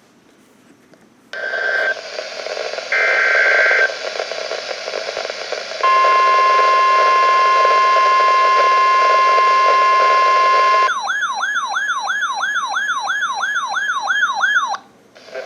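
Emergency Alert System broadcast over NOAA Weather Radio with a hissy radio background. It opens with two short data bursts of the SAME header. The steady 1050 Hz warning alarm tone follows for about five seconds, then a warbling alarm sweeps up and down about three times a second for about four seconds and cuts off.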